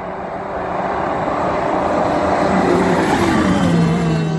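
Jet ski engine running at speed, growing louder, its pitch dipping and then holding steady near the end.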